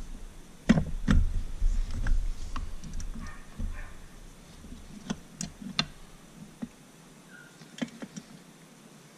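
Scattered metallic clicks and light knocks from hand work on an outboard engine block during piston installation. They are denser and heavier in the first few seconds, with handling thumps, then come as sparser single clicks.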